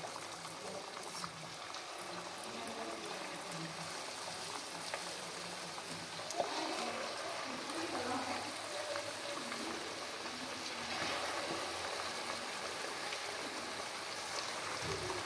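Coated chicken pieces deep-frying in hot oil, a steady sizzle and bubbling that grows louder about six seconds in and again near eleven seconds as more pieces go into the oil.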